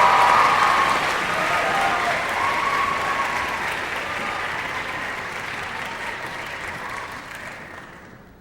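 Audience applauding, with a few cheers in the first seconds. The applause fades away steadily and is almost gone by the end.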